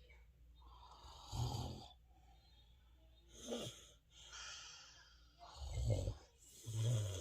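Snoring: about four loud snores a second or two apart, with quieter breathing between them.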